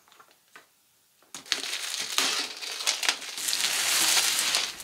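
Plastic cellophane shrink-wrap crinkling as it is cut and pulled off a cardboard box. A few faint clicks come before the crinkling starts about a second and a half in, and it is loudest near the end.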